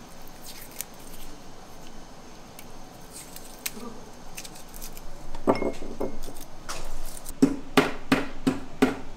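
Garlic cloves peeled by hand, a few faint papery crackles. From about halfway a wooden pestle pounds the garlic into paste in a mortar, knocking irregularly at first, then settling into a steady beat of about three strokes a second that grows louder near the end.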